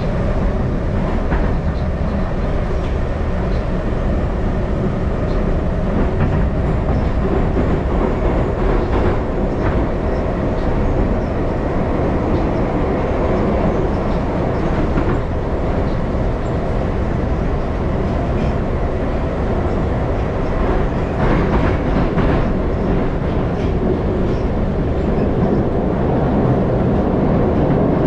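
Moscow Metro train running at speed through the tunnel, heard from inside the car: a steady, loud rumble of wheels and running gear with occasional faint clicks from the rails.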